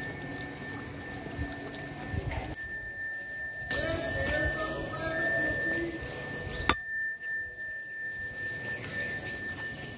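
A small handheld brass bell is struck twice, about four seconds apart, each strike ringing on and fading over a couple of seconds. The first strike is the louder.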